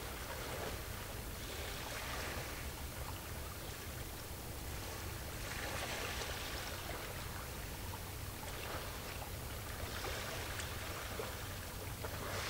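Small waves washing against the shore, a swell of splashing hiss every three or four seconds over a steady low rumble.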